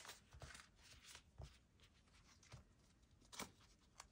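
Near silence, broken by a few faint, scattered rustles and taps of paper bills being handled.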